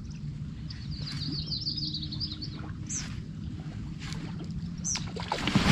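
Small birds chirping: a quick high warbling trill, then two short high descending chirps, over a low steady hum. A louder rush of noise begins right at the end.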